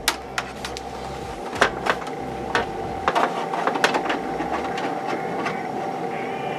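Scattered light clicks and knocks of a square optical audio cable plug being handled and fitted into the optical port on the back of a TV, over a steady electrical hum.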